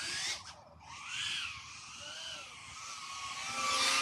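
BetaFPV Pavo 30 cinewhoop's motors and ducted propellers whining, the pitch rising and falling with throttle. The whine drops out briefly about half a second in as the throttle is cut, comes back, and builds to its loudest near the end.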